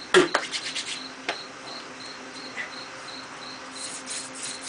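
An insect chirping steadily in a high, even pulse about three times a second. A loud sharp knock comes just after the start, then a few lighter clicks.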